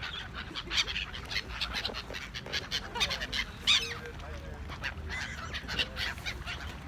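A flock of waterbirds calling, with many short overlapping calls, over a low steady rumble.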